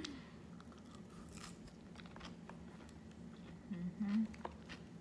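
Close-up chewing of a mouthful of poke salad, leafy greens and raw fish, with soft crunching and small wet mouth clicks. A brief hum comes from the eater about four seconds in.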